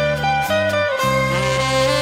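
Band music with a saxophone lead line over a bass that steps through a note about every half second, then holds one note about halfway through.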